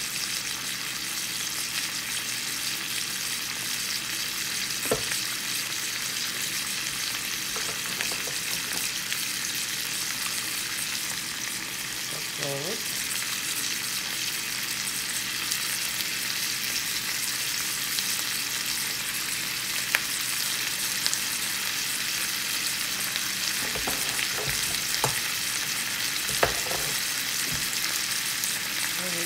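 Sliced potatoes, onions and bell peppers frying in a pan, a steady sizzle with a few short clicks scattered through it.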